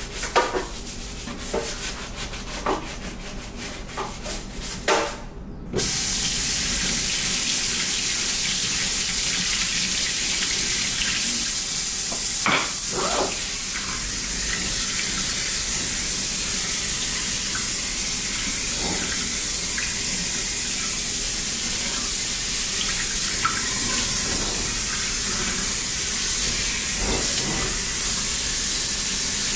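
Scrubbing strokes in a stainless steel kitchen sink. About six seconds in, the pull-down faucet sprayer starts and water hisses steadily into the basin, with a few light knocks as the sprayer is moved around.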